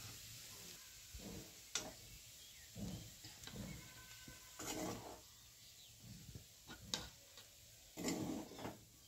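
Metal spatula scraping the kadhai and knocking against the pan and plate as cooked sabzi is scooped out and served: a scattering of faint scrapes and sharp taps, with the clearest taps about two seconds in and again about seven seconds in.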